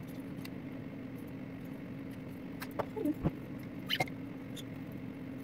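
Steady low hum from the aquarium the camera rests against, with faint scattered ticks and taps and a couple of short chirps from small pet birds about three and four seconds in.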